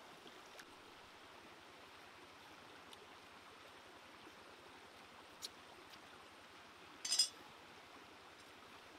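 Shallow stream running steadily over rocks. A small knock comes about five and a half seconds in, and a louder short metallic clink follows about seven seconds in, as a machete is picked up off the stones.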